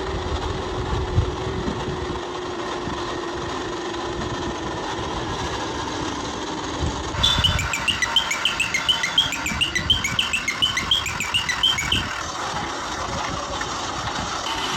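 A vehicle engine running steadily. From about seven seconds in, a quick run of short, high chirping blips lasts about five seconds over it.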